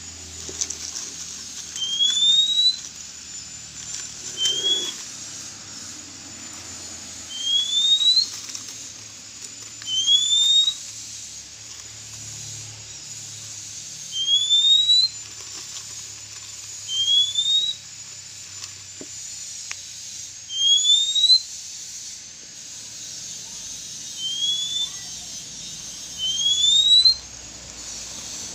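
Oriental magpie-robin (kacer) giving a shrill rising whistle again and again, one short upslurred note about every two to three seconds.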